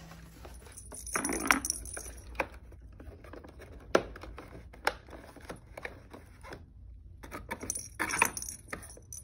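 Cardboard panels of a corrugated-cardboard cat house being fitted together by hand: irregular taps, clicks and scraping, with longer scrapes about a second in and near the end.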